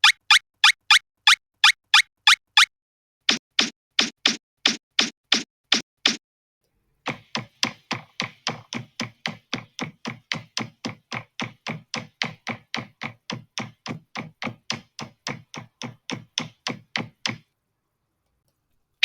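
Stock knocking sound effects played in three runs of evenly spaced strikes: about ten sharp taps, then after a short gap about nine fuller thunks, then a long fast run of knocks at about four a second that stops well before the end.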